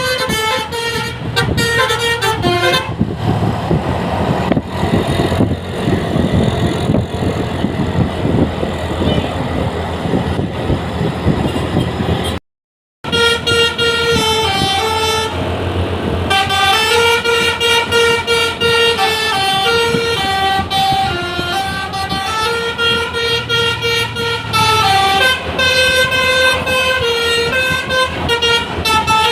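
Bus telolet basuri horn playing a flute-like melody of stepping notes. For about nine seconds in the middle a loud, noisy rumble takes over without the tune. After a brief dropout the horn melody comes back and carries on.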